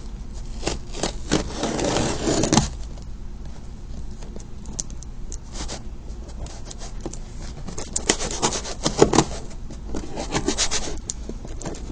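A flathead screwdriver scraping and prying at a taped package, with rubbing, scratching and small clicks coming in irregular bouts, busiest in the first few seconds and again after about eight seconds.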